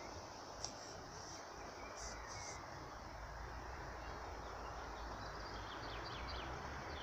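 Outdoor ambience: a steady low hiss of background noise with faint, scattered bird chirps, a few more of them near the end, and a single small click under a second in.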